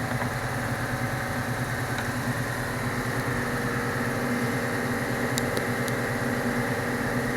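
Mercedes-Benz CLA 45 AMG's turbocharged four-cylinder engine idling steadily while misfiring, a fault the mechanic traces to a failed cylinder head gasket letting coolant into a cylinder.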